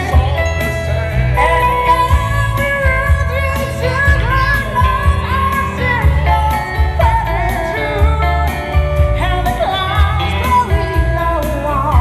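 A man and a woman singing a pop ballad as a duet through microphones and a PA, backed by an electronic keyboard with a steady, pulsing bass beat.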